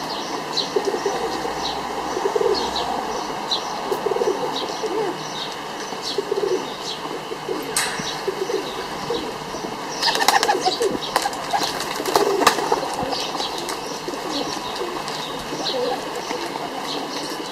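Domestic pigeons cooing in a flock, over a run of short high chirps repeating about twice a second. Bursts of wing flapping come about ten to thirteen seconds in.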